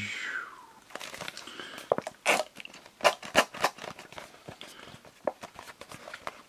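Cardboard passata carton handled in the hands, giving a string of irregular crackles and sharp taps.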